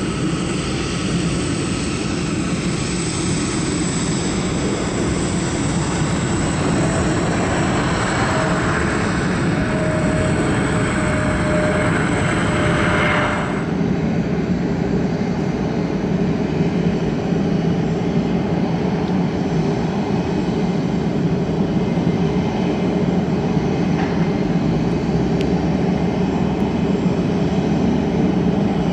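Jet airliner landing, its engines making a loud, even rumble with a high whine over it. About 13 seconds in the sound changes suddenly to a steadier, lower jet rumble.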